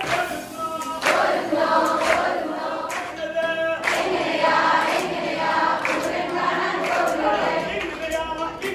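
A large group of girls and women singing together, with a few sharp claps.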